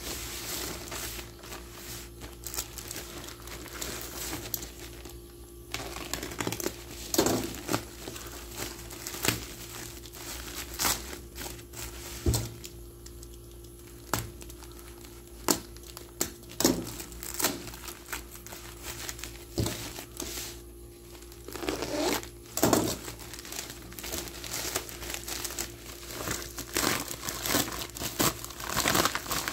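Plastic courier mailer bag crinkling and tearing in irregular crackles as it is cut open with a utility knife and handled, with bubble wrap rustling near the end as the wrapped package is pulled out.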